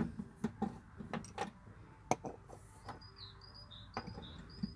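Light, irregular metal clicks and taps of a socket on an extension bar knocking against a 1967 Mustang's steel floor pan while it is worked into a floor hole, with one sharper click about two seconds in.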